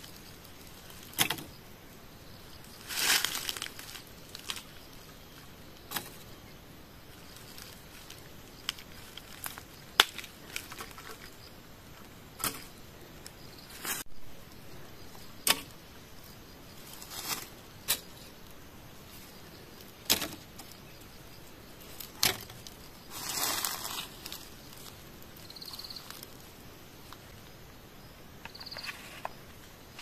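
Bamboo pieces of a hand-made bird trap clicking and knocking as they are handled, a dozen or so separate sharp taps, with two longer rustles of dry leaf litter, about three seconds in and again near twenty-three seconds.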